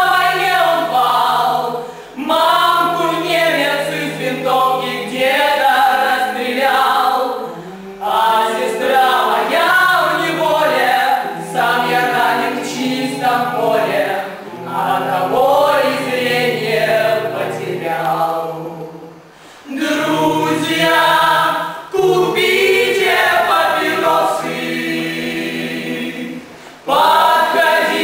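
A group of voices singing together, choir-style, in phrases with short breaks between them.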